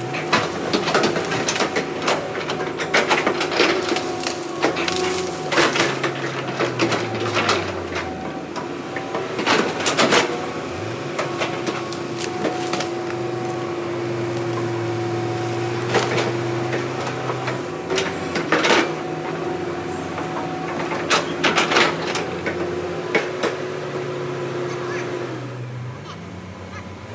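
Heavy earthmoving machine's diesel engine working, rising and falling in pitch as its load changes, under a steady whine. Irregular sharp knocks and clanks come throughout. The whine stops near the end.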